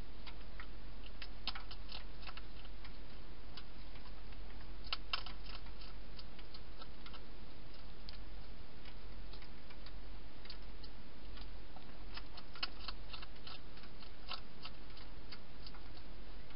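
Wild hedgehog crunching dry food, heard as irregular sharp clicks that come in clusters: one about a second in, one around five seconds in, and a longer run from about twelve to fourteen seconds, over a steady low hum and hiss.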